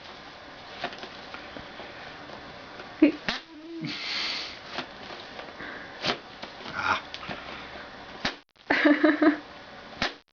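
Air being squeezed out of a snug cardboard VHS box set as it is slid together, making rude, fart-like noises: a low, falling toot a little over three seconds in, followed by a breathy hiss of escaping air, with light scraping clicks of the cardboard.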